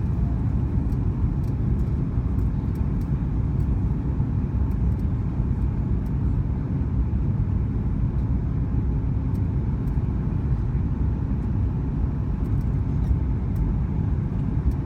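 Boeing 737 MAX 8 with CFM LEAP-1B engines on the ground just after landing: a steady low rumble of engine and rolling noise.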